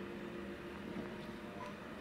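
Faint steady low hum of a car idling, heard from inside the cabin.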